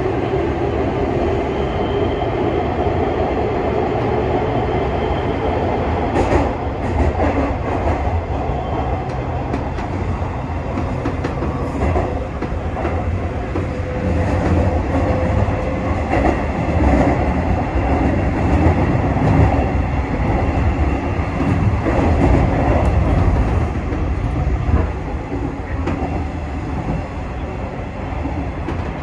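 JNR 201 series electric train running, heard from the driver's cab: a steady rumble with a motor whine that slowly rises in pitch through the first half as the train gathers speed, and wheels clicking over rail joints.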